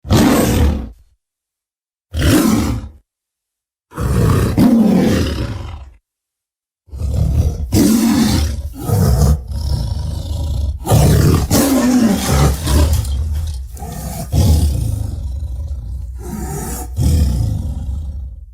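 Made-up Giganotosaurus creature sound effects: three short separate roars in the first six seconds, then from about seven seconds in a long, unbroken run of growls and roars with a deep rumble.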